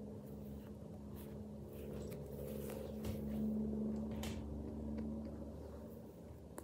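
A steady engine-like drone in the background, swelling to a peak about halfway through and fading again, with a few faint clicks.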